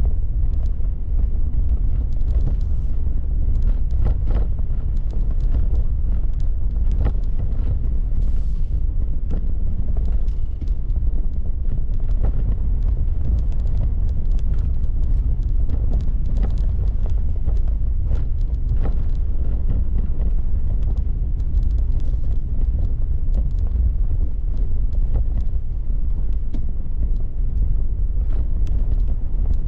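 Car rolling slowly over an unpaved gravel lot, heard from inside the cabin: a steady low rumble of tyres and road with many small clicks and pops of stones under the tyres.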